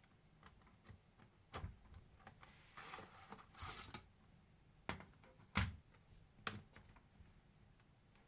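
Scattered sharp clicks and taps of small hard parts being handled while a Toshiba BJ65/FS is taken apart. There are two short scraping, rustling stretches around the middle, and the loudest knock comes a little past halfway.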